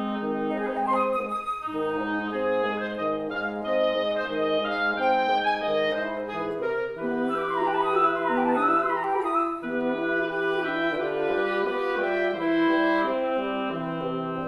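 Woodwind quintet of flute, oboe, clarinet, bassoon and French horn playing classical music live. Long held low notes sit under moving upper lines, with quick running passages in the upper voices about halfway through.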